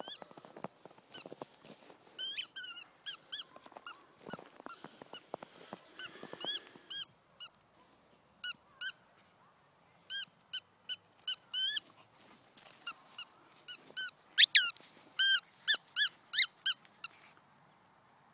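A squeaky dog toy squeaking over and over in quick, irregular runs as the whippet pup plays with it. Each squeak is short and high-pitched. There is soft crunching in the first half.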